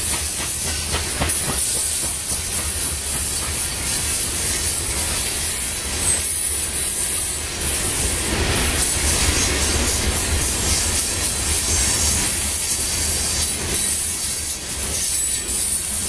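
Covered hopper cars of a BNSF grain train rolling past: a steady rumble and hiss of steel wheels on the rails.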